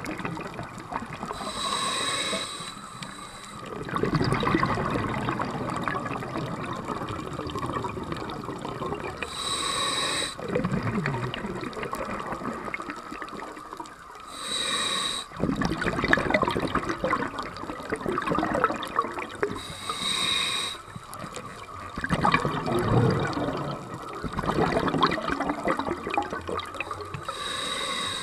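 Scuba diver breathing through a regulator. Five short hissing inhales through the demand valve come roughly every five to eight seconds, each followed by a few seconds of bubbling exhaust as the breath is let out.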